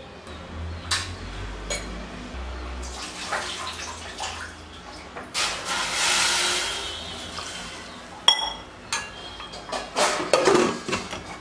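Water poured into a steel pressure cooker onto pieces of raw mutton, a pouring splash lasting about two seconds midway through. Near the end come sharp metal clicks and clatter as the pressure cooker lid is handled and set on.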